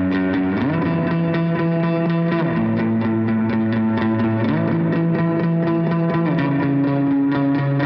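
Background music: a distorted electric guitar playing sustained chords that slide from one to the next, over a steady strummed rhythm.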